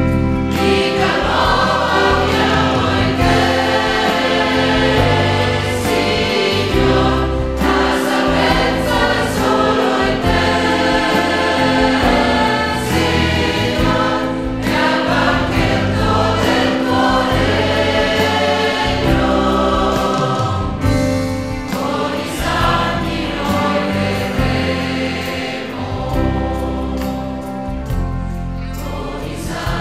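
Parish choir singing a church hymn with accompaniment.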